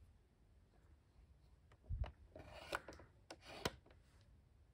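Quiet handling of a clock radio: a soft thump about two seconds in, then a few light clicks and rubbing as a hand moves over the front of the unit.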